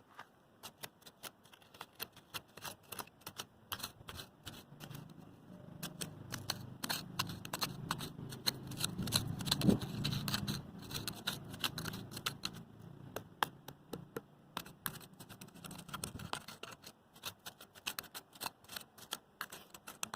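Irregular crackling clicks throughout, with a low rumble that builds about five seconds in, peaks with one sharp knock near the middle and dies away about sixteen seconds in.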